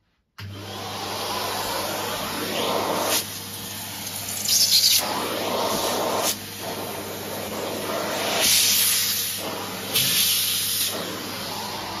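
Numatic Henry Xtra cylinder vacuum cleaner running with its crevice tool fitted, a steady motor hum under a rush of air that swells and drops several times as the narrow nozzle is worked along the carpet edge and skirting board.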